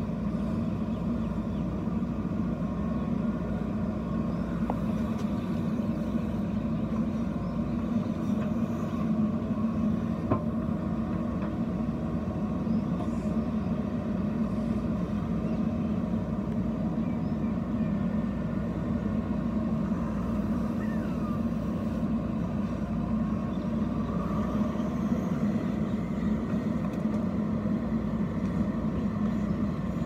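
JCB 3DX backhoe loader's four-cylinder diesel engine running steadily at constant speed while the backhoe digs soil.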